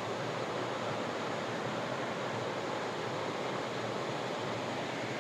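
Steady rushing of water from a waterfall, an even, unbroken noise.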